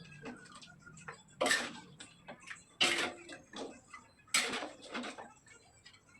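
Irregular sharp knocks and clicks, three louder strikes spaced about a second and a half apart with lighter ticks between them.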